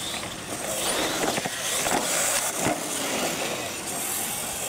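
Radio-controlled monster trucks racing across concrete, their motors and tyres making a steady hiss, with a couple of sharp knocks about a second and a half and nearly three seconds in.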